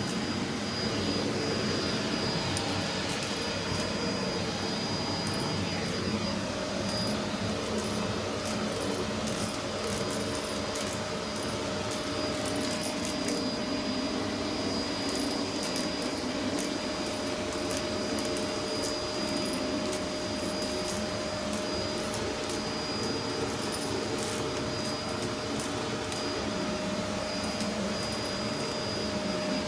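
Vacmaster Captura vacuum cleaner running steadily, a droning rush with a steady high whine and a lower hum, with many short clicks and crackles scattered throughout.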